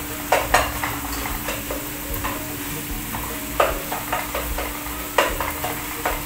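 Minced meat frying in a nonstick pot, its water cooked off, with a steady sizzle, while a spatula stirs it, scraping and knocking against the pan in several sharp strokes.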